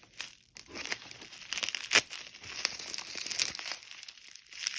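Packaging crinkling and rustling as it is unwrapped by hand, with a sharp crackle about two seconds in.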